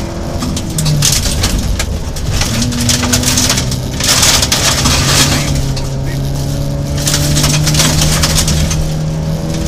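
Rally car engine heard from inside the cabin on a gravel stage, its pitch stepping up and down several times as it is revved and shifted. Loud rushing hiss of gravel against the car about four seconds in and again a few seconds later.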